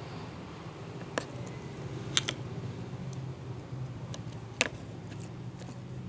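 A few short, sharp clicks and taps over a steady low hum: one about a second in, a quick pair about two seconds in, and one more after four and a half seconds.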